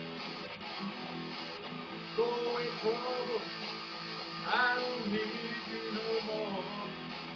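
Electric guitar playing a blues rock instrumental break: single-note lead lines with bent notes over a steady held accompaniment, with one sharply rising bend near the middle.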